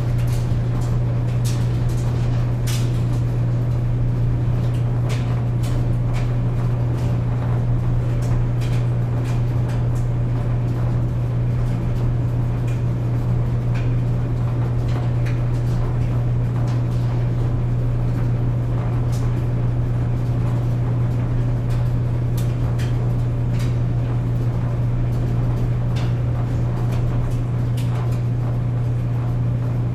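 Clothes dryer running with a steady low hum, the tumbling drum giving scattered irregular light clicks and knocks.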